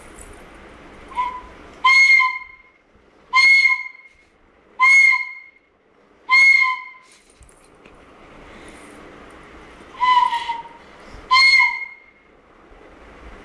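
A small child blowing a toy flute: about seven short toots of roughly half a second each, all on the same high note, with a longer pause midway.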